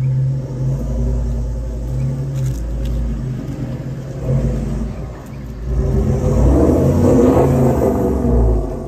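Four-wheel-drive ute's engine working hard under load as it climbs a steep rutted washout, revving up harder in the second half and easing off near the end.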